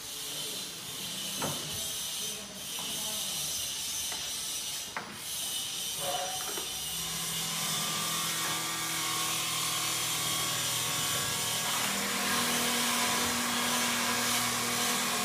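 Small plastic trays handled by hand, rubbing with a few sharp clicks in the first five seconds, over a steady hiss; a low hum comes in about halfway.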